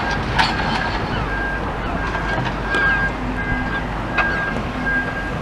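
Outdoor rumble of wind on the microphone and traffic, with a faint short beep repeating a little under a second apart and a few sharp clicks or knocks.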